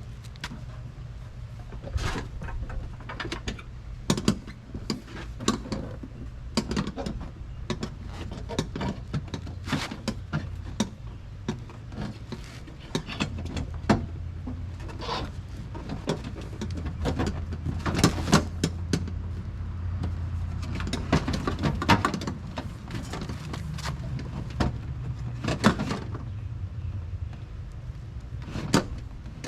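Irregular knocks, clicks and rattles of an aftermarket rear bumper cover being handled and pressed into place on a car, over a steady low hum.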